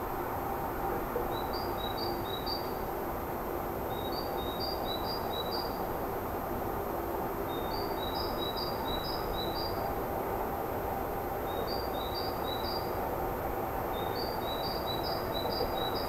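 A small songbird singing: five short phrases in a row, each a quick run of three to five repeated high two-note elements, about every three seconds. Under it runs a steady low background rumble.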